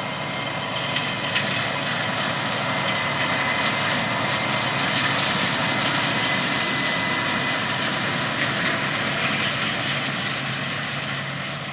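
A John Deere 8345R tractor's diesel engine running as it pulls a harrow, with a steady high whine over the engine note. The sound grows louder toward the middle and fades near the end.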